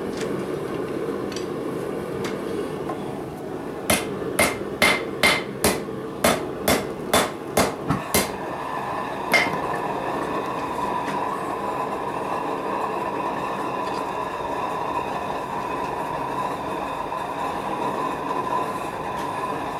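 Hammer blows on a steel hook over an anvil: about a dozen sharp, briefly ringing strikes at roughly two to three a second, starting a few seconds in, then one more blow about a second later. A steady hum runs underneath throughout, carrying a clear steady tone after the blows.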